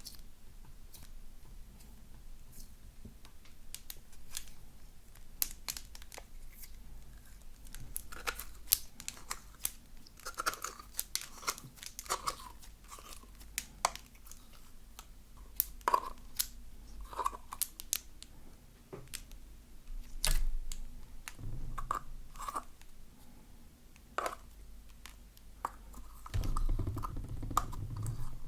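Slime being stretched, pressed and kneaded by hand, with irregular sticky clicks, crackles and small popping squelches.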